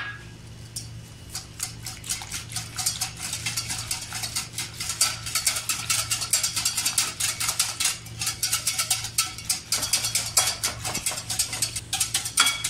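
Metal wire whisk beating a thin liquid mixture, with sugar just added, in a glass bowl: rapid, continuous clicking of the wires against the glass, starting about a second in.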